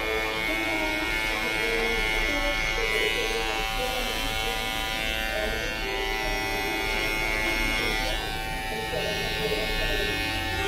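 Electric hair clippers running with a steady buzz as they cut short hair over a comb, fading the back and side of a man's head.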